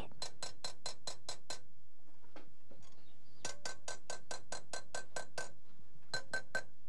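Small hammer tapping a chasing punch into a strip of metal, engraving a decorative pattern: quick runs of light, ringing metallic taps, about five a second, in three runs with short pauses between.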